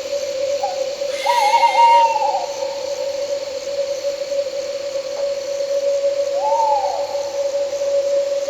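Owl calls over a steady one-note drone of night insects: a short note, a longer wavering call about a second in, and a single rising-then-falling hoot about six seconds in.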